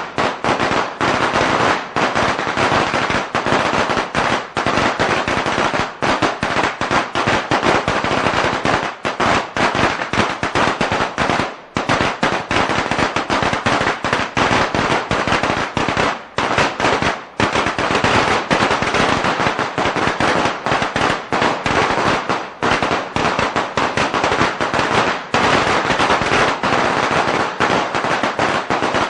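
A string of firecrackers (biānpào) going off in a rapid, continuous crackle of bangs, with a couple of brief lulls near the middle.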